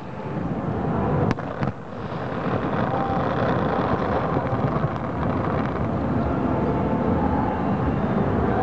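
Distant aerial fireworks: two sharp bangs a little over a second in, then a steady, dense rumble of bursts from about two seconds in.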